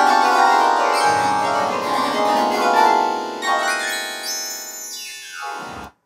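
Computer MIDI synthesizer playing a dense cluster of overlapping keyboard-like notes, triggered by dragging the mouse across an on-screen XY grid. Pitch follows the pointer's height and loudness its horizontal position. Near the end a quick downward run of notes is heard, and then the sound cuts off suddenly.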